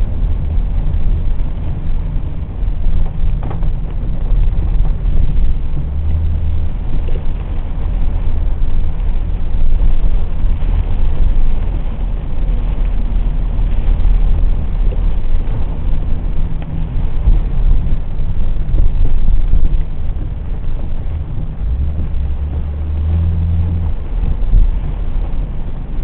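Car driving on a wet road, heard from inside the cabin: a steady low rumble of engine and tyre noise. The engine note holds steady for a moment about six seconds in and again near the end.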